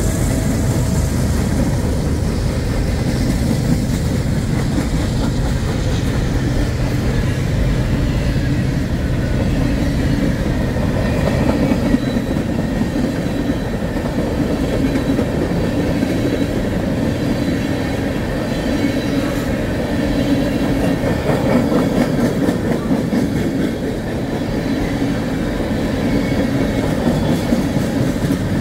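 Freight train tank cars rolling past at close range: a steady rumble of steel wheels on the rails with a light clickety-clack.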